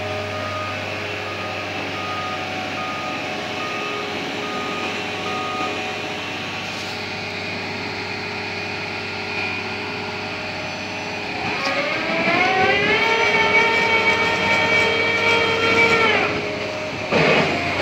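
Diesel engine of a Liebherr LB 36 rotary piling rig running steadily, with a short beep repeating about one and a half times a second for the first few seconds. About eleven seconds in the engine revs up, holds at high revs, then drops sharply near the end before picking up again.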